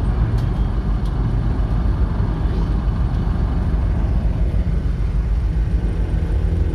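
Steady low engine rumble of a motor vehicle running, without pauses.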